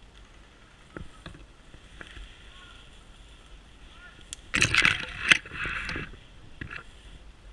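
Spruce branches brushing and scraping against the camera and clothing of someone pushing through young spruce trees. A few faint ticks come first, then a loud burst of rustling about halfway through lasts about a second and a half.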